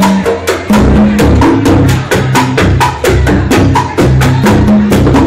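Live Latin jazz band playing: congas and timbales drive a fast run of sharp strikes over a low upright bass line.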